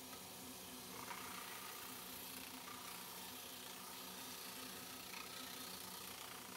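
Benchtop disc sander running steadily with dust collection on: a low motor hum under a high hiss. A wooden board's corner is touched lightly to the spinning abrasive disc to round it.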